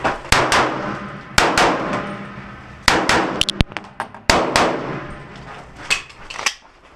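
Pistol shots fired in quick pairs and short strings, about a dozen in all, each followed by the clang and ring of steel plate targets being hit.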